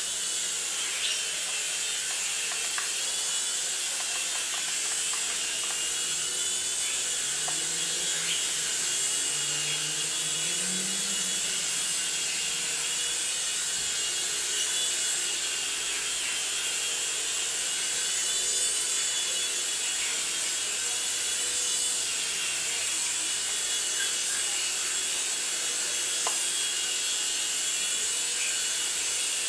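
Small radio-controlled toy helicopter flying: a steady high-pitched whir from its electric motors and spinning rotors. A fainter low hum rises and falls in pitch partway through as the rotor speed changes.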